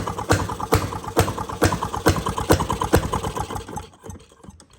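1917 upright Maytag single-cylinder two-stroke engine running, with a sharp firing beat about twice a second and lighter beats between. The sound falls away about four seconds in.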